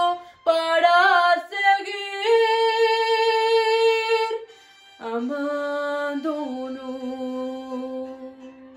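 A young woman's solo singing voice holding the closing notes of a Spanish ballad: a long high note, a short break, then a final phrase that settles onto a long low note and fades out near the end.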